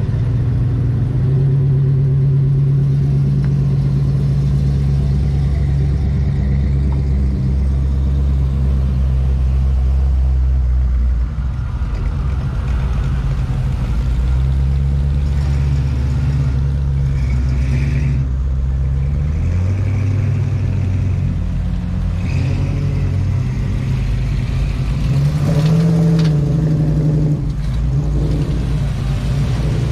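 Hot rod and street rod engines idling and rumbling past at low speed, one car after another. One engine revs briefly near the end.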